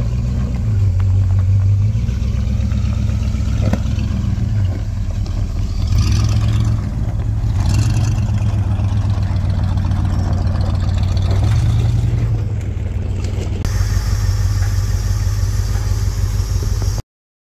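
An off-road 4x4's engine running on the trail, its revs rising and easing several times under load. The sound cuts off suddenly near the end.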